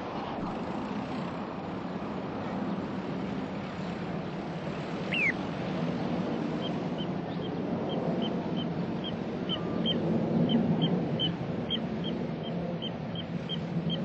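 Little ringed plover calling: a single falling whistle about five seconds in, then a fast run of short, high piping calls about three a second. Under it, a steady low rumble of distant engines.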